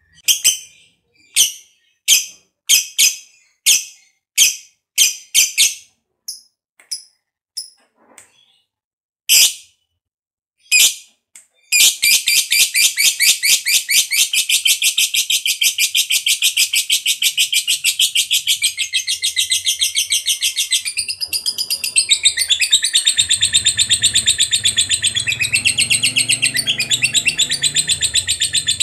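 Lovebird calling: a string of separate sharp, high chirps, then about twelve seconds in a long, fast, unbroken chattering trill. This is the 'ngekek panjang' long trill that lovebird keepers prize in a vocal bird.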